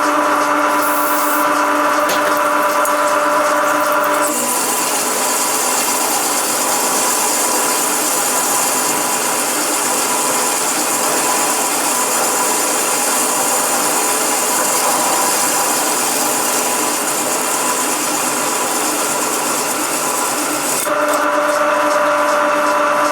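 A 15 mm carbide-tipped hole saw turning at 500 RPM in a machine spindle. Its motor hums steadily, then about four seconds in the saw bites into 3 mm steel plate. It cuts with a steady, high hissing grind for about sixteen seconds, and near the end it runs free again with the plain motor hum.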